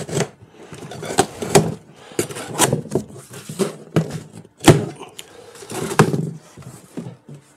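Large cardboard shipping box being opened: a knife slitting the packing tape, then the cardboard flaps pulled open, with an irregular run of sharp cardboard snaps and knocks amid rustling.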